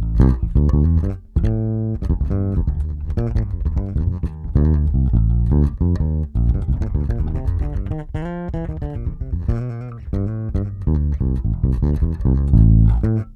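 Electric bass guitar played through an Ampeg SGT preamp with its built-in compressor switched off: a run of plucked notes with strong low end, uncompressed.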